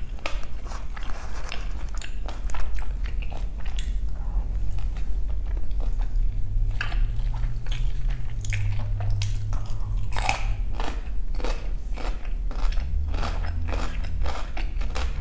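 Close-miked chewing of crunchy food: a steady run of irregular, crisp crunches and bites.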